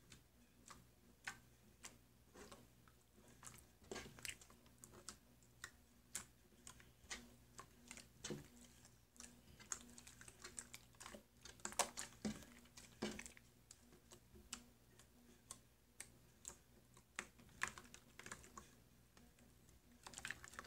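Jiggly slime being squeezed and poked by hand: faint, irregular little clicks over the steady hum of an electric fan.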